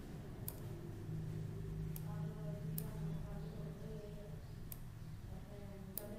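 Computer mouse clicking: five single, sharp clicks at uneven intervals, over a low steady hum.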